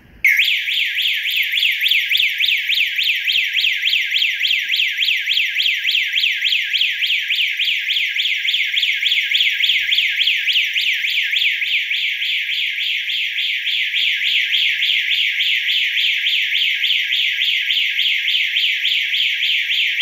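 Security alarm siren set off in a test, sounding loud and continuous. It comes on suddenly right at the start with a fast warbling tone of rapid repeated pitch sweeps, about five a second.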